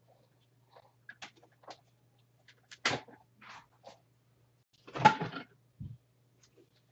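Hard plastic Ninja blender jar and parts being handled: a few light clicks, a knock about three seconds in, and the loudest clatter about five seconds in, followed by a dull thump.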